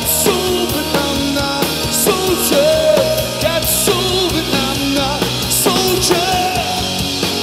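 Live rock band playing loudly: electric guitar, bass guitar and drum kit, with a bending, held melody line above.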